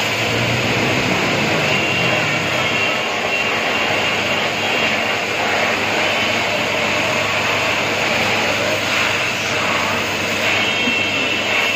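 Pressure washer spraying a high-pressure water jet onto a motorcycle, a steady hissing rush of spray that stays even throughout.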